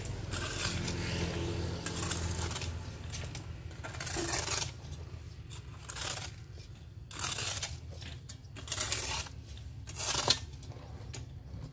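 A shovel blade scraping loose soil across concrete, in about six separate strokes, the first one long, over a steady low hum.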